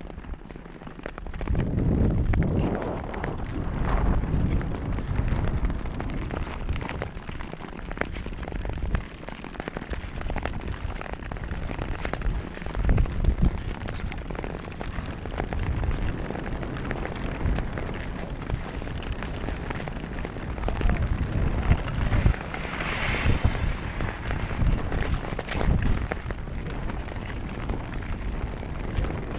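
Long-bladed Nordic touring skates gliding and scraping over clear black lake ice, a steady crackling hiss of blades on ice with wind buffeting the microphone. A brief high ringing tone sounds about two-thirds of the way in.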